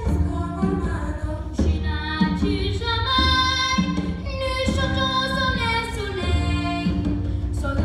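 Children's choir singing a song, with some notes held for about a second.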